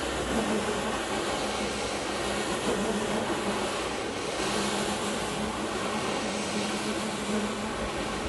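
Electric brush carpet-scrubbing machine running steadily as it is pushed over a foam-soaked rug, its motor hum under the wet swish of the brushes through the suds.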